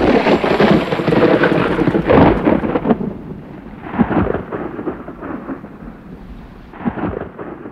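A sudden thunderclap, then rolling thunder that swells again about two, four and seven seconds in, with a rain-like hiss underneath, fading slowly.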